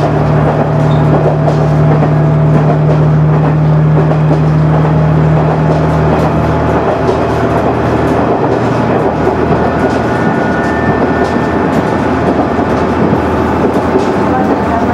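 Cabin sound of a KiHa 100 diesel railcar running on the line. A steady low engine hum drops away about halfway through, as if power is shut off. After that the wheel-and-rail rumble carries on alone, with faint clicks.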